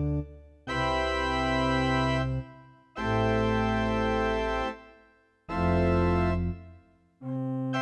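Casio CTK-800 electronic keyboard playing a preset voice: three held chords of about two seconds each, every one fading out before the next, with a fourth chord beginning near the end.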